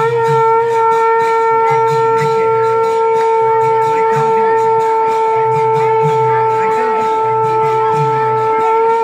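A conch shell (shankha) blown in one long, steady note of about nine seconds, stopping near the end, over a softer low pulsing sound.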